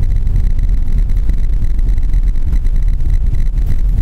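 Suzuki Grand Vitara driving through deep snow, heard from inside the cabin: a steady low rumble of engine and tyres.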